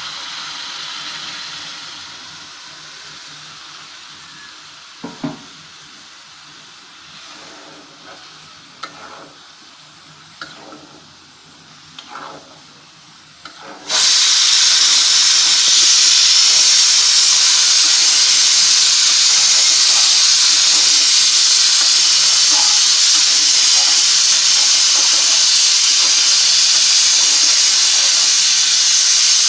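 Chicken curry bubbling and sizzling in an aluminium pot, with a metal spatula knocking against the pot a few times. About halfway through, a loud steady hiss of sizzling and steam cuts in suddenly.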